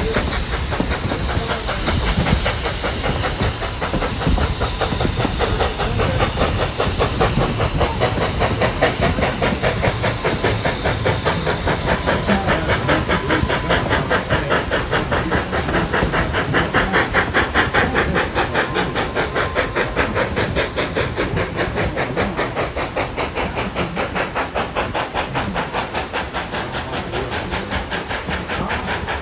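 Steam locomotive chuffing in a fast, steady rhythm with hissing steam, heard from a passenger car in the train it is pulling. The beat is strongest about halfway through.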